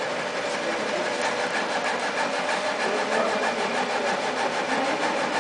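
Laser cutter running as it cuts into hot dogs: a steady whir with a fast, even ticking from the moving head.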